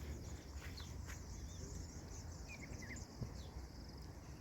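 Rural outdoor ambience: a steady high insect drone, with a few short bird chirps about two and a half seconds in, over a low background rumble.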